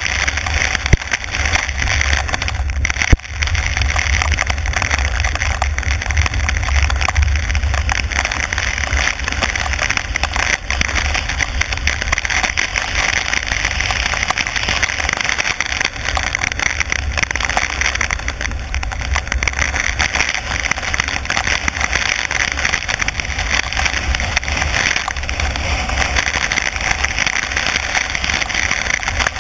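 A car driving on a wet road in heavy rain: steady tyre and rain noise over a low rumble, with two sharp knocks about one and three seconds in.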